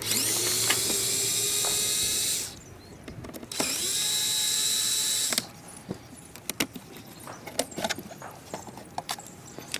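Cordless drill-driver running twice, about two seconds each, its motor spinning up at the start of each run, while it backs out screws from the plastic steering-column trim. After that come light clicks and ticks as the loosened parts are handled.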